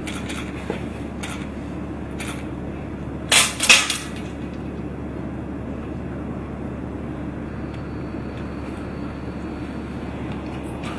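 A steady low hum with a few brief sharp noises over it. The loudest are two close together about three and a half seconds in.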